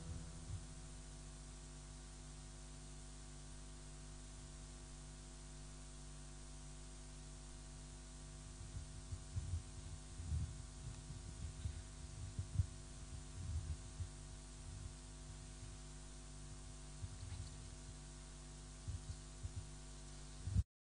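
Steady electrical hum from the microphone and sound system, with irregular low bumps and thuds of a handheld microphone being handled and set on a wooden lectern. The audio cuts off just before the end.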